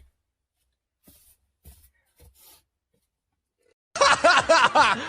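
Faint breathy sounds, then about four seconds in an abrupt burst of people laughing in quick pulses, which cuts off suddenly.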